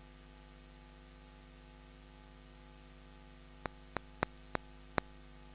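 Steady electrical mains hum from the church's microphone and sound system, with a quick run of sharp clicks, about three a second, starting a little past halfway.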